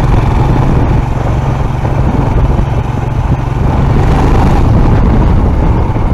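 Motorcycle engine running steadily under way, heard from the rider's seat over a steady rush of road noise.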